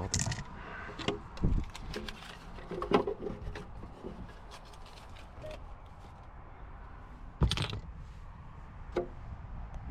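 Scattered knocks, clicks and scrapes of objects and plastic trim being handled inside a car, with sharp knocks about three seconds in and again near the eight-second mark.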